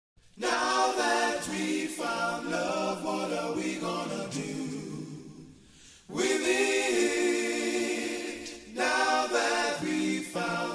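Vocal music: several voices singing held notes in harmony, in phrases of a few seconds with brief pauses between them, and no clear beat.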